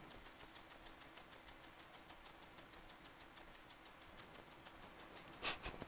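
Small dog licking and nosing at a leather couch cushion: faint, rapid ticking and clicking, with one short louder noise near the end.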